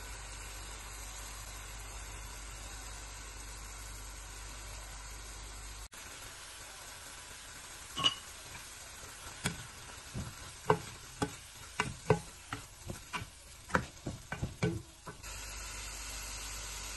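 Chicken pieces frying with a steady sizzle in a nonstick pan. After a cut about six seconds in, a spatula stirs the spiced chicken, scraping and knocking against the pan in a string of sharp taps, and the steady sizzle returns near the end.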